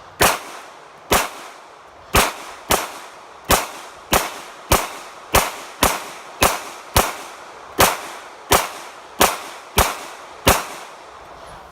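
A semi-automatic pistol fired in a steady string of about sixteen aimed shots, roughly one every two-thirds of a second, each a sharp crack with a short echo.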